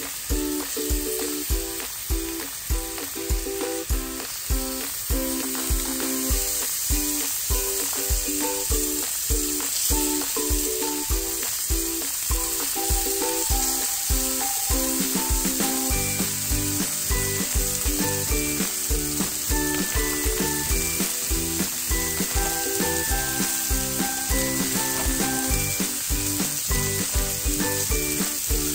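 Pork barbecue skewers on a stovetop griddle and sliced mushrooms in a skillet sizzling steadily as they fry. Background music with a steady beat plays along.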